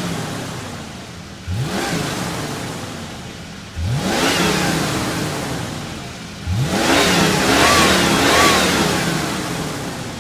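Ford Mustang engine revved in repeated throttle blips: the pitch shoots up sharply three times, about two to three seconds apart, and each rev falls away slowly. The last rev is held longest, rising twice before it dies down.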